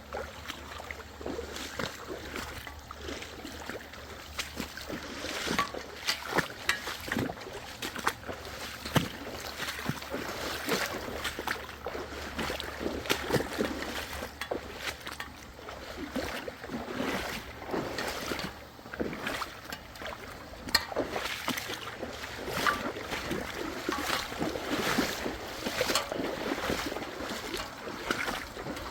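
Irregular footsteps crunching and rustling through creekside ground and brush, mixed with water sloshing.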